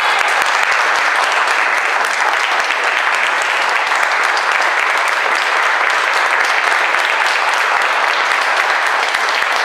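Audience applause: many people clapping steadily, a dense patter of hand claps.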